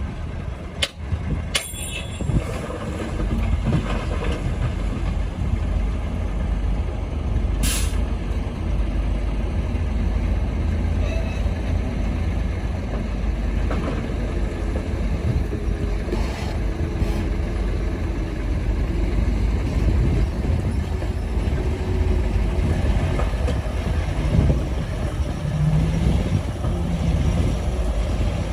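Diesel engines of heavy earthmoving machinery running with a steady deep rumble, with a few short sharp noises in the first eight seconds.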